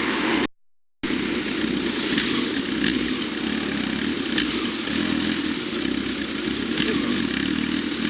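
A motor vehicle's engine running steadily nearby. The sound cuts out completely for about half a second near the start.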